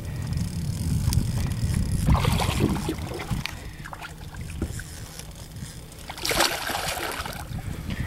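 A large black drum splashing at the water's surface beside the boat, twice: about two seconds in and again about six seconds in. A steady low rumble runs underneath.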